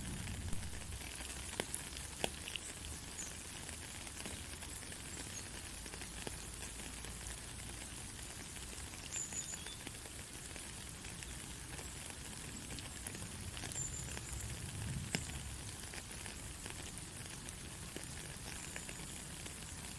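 Heavy rain falling steadily, an even hiss with a few sharper ticks of single drops landing close by.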